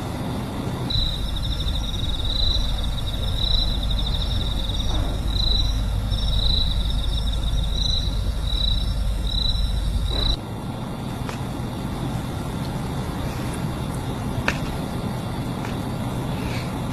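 Crickets chirping in repeated pulses, about one a second, over a low steady rumble of night ambience; both stop abruptly about ten seconds in, leaving a quieter steady hum.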